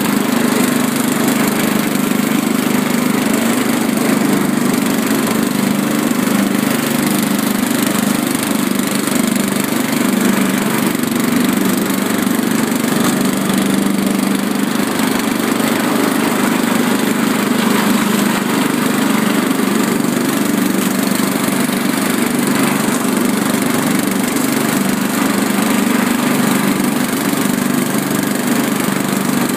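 Riding lawn mower engine running steadily at an even speed.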